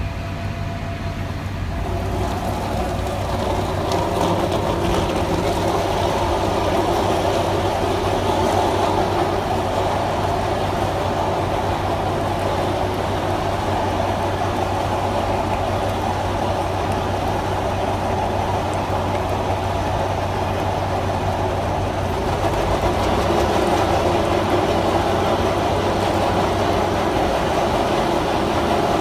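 Caterpillar 432F2 backhoe loader's diesel engine running steadily under load while its QST3000D hydraulic chainsaw attachment runs, the saw's noise coming up about two seconds in and then holding steady.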